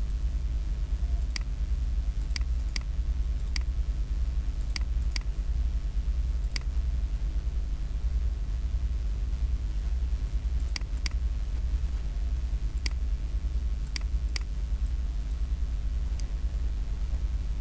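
Computer mouse clicking about a dozen times, often in quick pairs, as points are picked to draw lines, over a steady low hum.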